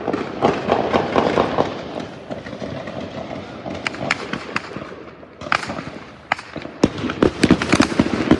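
Gunfire in a street shootout: a rapid string of shots, then scattered single shots through the middle, then rapid fire growing dense again near the end.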